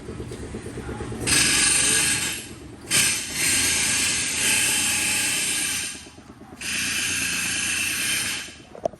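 Power tool running in repeated loud, hissing bursts of one and a half to three seconds each, with short pauses between, as in a busy mechanic's shop. A low rapid rattle comes before the first burst.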